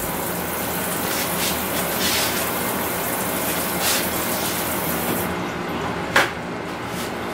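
Pork sinigang broth boiling steadily in a wok under a heap of pechay leaves, steaming the greens, with one sharper pop about six seconds in.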